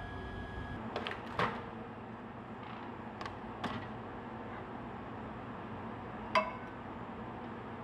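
A few light clicks and knocks, then a glass Erlenmeyer flask set down on a microwave's glass turntable with a short ringing clink about six seconds in.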